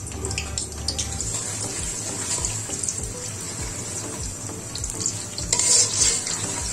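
Sliced onions sizzling and crackling in hot oil in a large wok as they are fried to brown, stirred with a metal spatula, the sizzle getting louder for a moment near the end.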